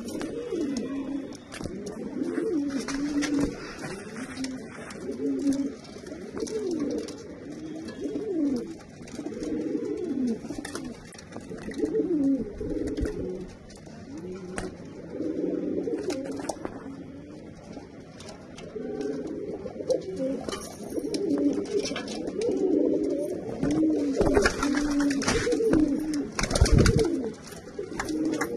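Domestic pigeons cooing over one another in a loft: repeated low, rolling coos that rise and fall, with scattered light clicks. A low thump near the end is the loudest sound.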